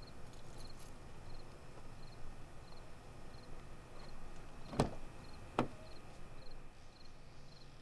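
Crickets chirping in a steady rhythm, about three chirps every two seconds. About halfway through come two sharp clacks less than a second apart, the first the louder: a car door being opened and shut.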